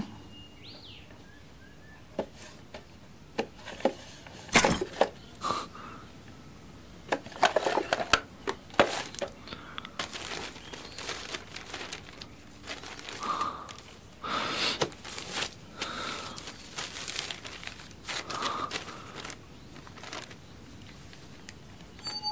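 Paper rustling and crinkling in irregular strokes as a folded sheet is opened out and handled.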